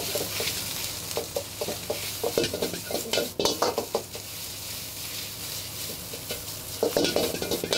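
Metal ladle scraping and knocking against a wok as egg and rice are stir-fried for fried rice, over a steady sizzle of hot oil. The ladle strokes come quick and close together, thin out a little past the middle, and pick up again near the end.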